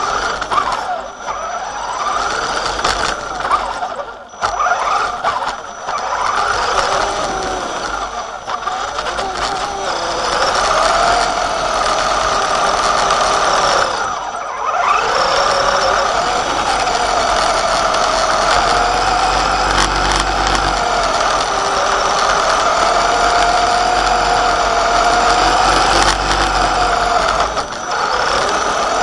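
Axial Wraith RC truck's electric motor and two-speed gearbox, set in high gear, whining as it drives over dirt and grass. The pitch rises and falls with the throttle, dropping away briefly about four seconds and about fourteen seconds in.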